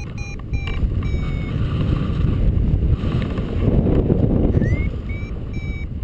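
Wind buffeting the microphone of a paraglider pilot's camera in flight, gusting louder about halfway through. Over it a variometer beeps high and electronic, marking rising air: a few quick beeps, then a longer tone, then after a pause a rising chirp and more short beeps near the end.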